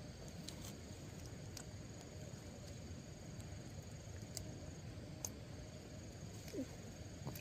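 Faint rural outdoor ambience with insects chirping steadily at a high pitch, a few scattered small clicks, and one short falling squeak about six and a half seconds in.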